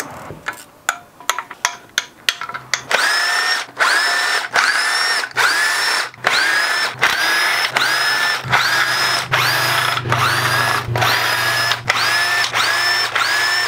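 A ratchet clicking, then a cordless power driver spinning out the oil pan's 10 mm bolts in over a dozen short trigger bursts. Each burst has a quickly rising whine as the motor spins up.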